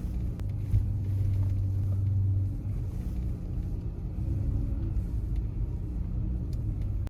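Dodge Caravan minivan engine running with a steady low rumble that eases off about two and a half seconds in.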